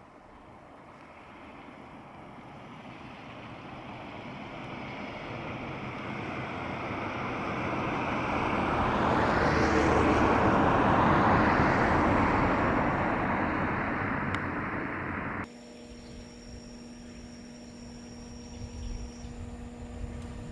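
A vehicle passing: its noise swells over about ten seconds, peaks, then fades. After a sudden cut, a faint steady hum with a few fixed tones.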